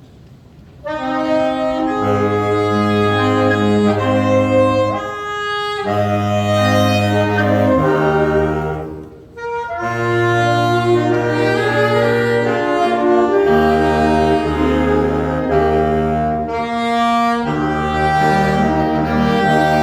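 Instrumental introduction to a hymn: a sustained melody over held chords, starting about a second in, with a brief dip around nine seconds.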